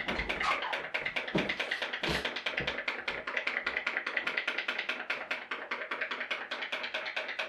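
Homemade pop-pop (putt-putt) steam boat running: its aluminium boiler, heated by tea lights, pops in a rapid, even rhythm as it pulses water out of its tubes.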